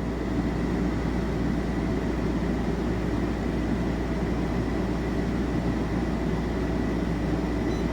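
Coleman Mach rooftop RV air conditioner running steadily, its compressor and fan giving a low, even hum and rush of noise with a faint thin whine above it. It has just been started through a newly fitted soft start, which brings the power draw up gradually instead of in one jump.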